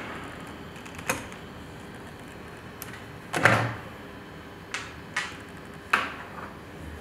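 A handful of sharp clicks and clacks from small metal fittings and hand tools being handled while a hydraulic hose fitting is unscrewed, the loudest a short clatter about three and a half seconds in.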